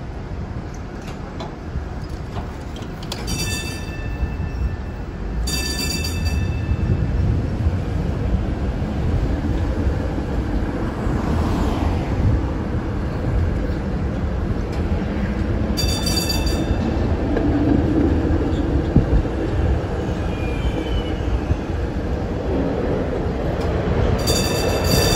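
Vintage streetcar rolling along its rails with a steady rumble, and four brief high-pitched ringing tones over it.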